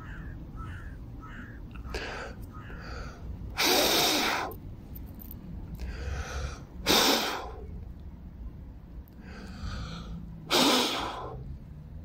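Crows cawing: several quieter caws, then three loud caws about three and a half seconds apart, each just after a softer one.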